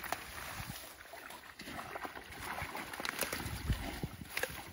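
Water sloshing and splashing irregularly as people wade through a shallow ditch, with scattered small knocks and low thumps.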